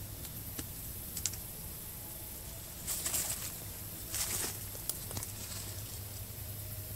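Dry leaves and twigs rustling in two short bursts, each under a second, with a few light clicks before them, over a steady low background hiss.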